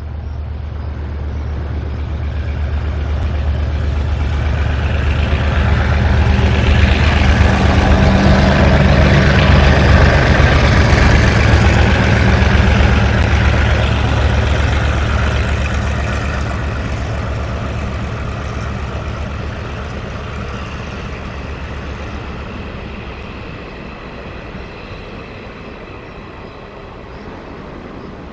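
Taiwan Railways R100 diesel-electric locomotive hauling a train of coaches past, its deep engine hum and the rumble of wheels on rail swelling to a peak about ten seconds in and then slowly fading as it moves away.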